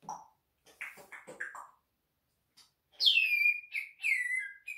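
A bird calling: a few soft, short notes, then about three seconds in a series of about four loud whistled calls, each sliding down in pitch.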